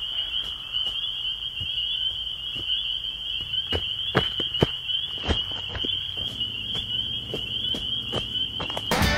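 Steady high chirring of crickets, with scattered soft knocks and taps over it.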